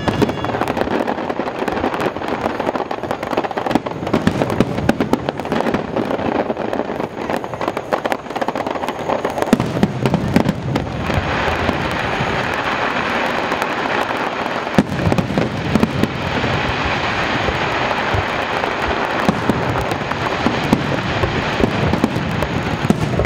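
Aerial firework shells bursting in a dense, continuous barrage of bangs. About halfway through, a steady crackling joins the bursts.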